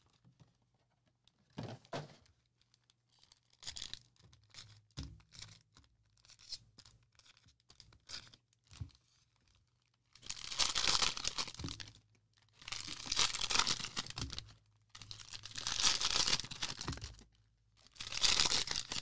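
Plastic wrappers of sports card packs being torn open: quiet rustling and small clicks, then four long tearing rips, one every two to three seconds.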